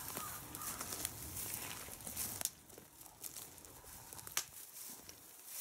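Footsteps of several people crunching and rustling through dry grass and palmetto brush, with a couple of sharp snaps along the way.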